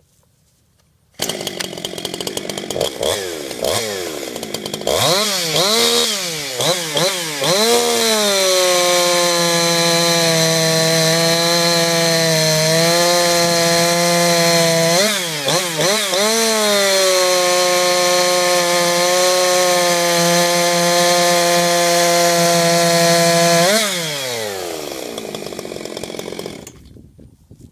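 Ported two-stroke chainsaw (Husqvarna 340 with a Jonsered 2150 cylinder) running: a few quick throttle blips, then held at full throttle for about fifteen seconds through a cut, its revs staying up with only small dips. It drops back to idle and stops near the end.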